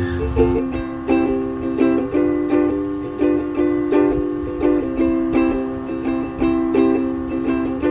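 Background music: a light plucked-string tune with a steady beat.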